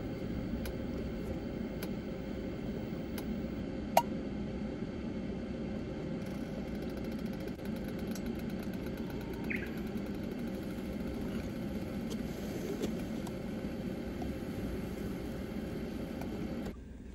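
Steady low rumble of a running car heard inside its cabin, with a single sharp click about four seconds in; the rumble drops off abruptly near the end.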